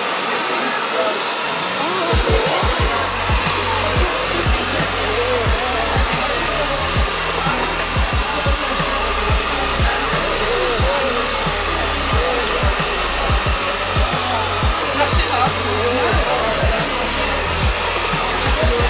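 Handheld hair dryer blowing steadily as it dries long curly hair. Music with a steady bass beat comes in underneath about two seconds in.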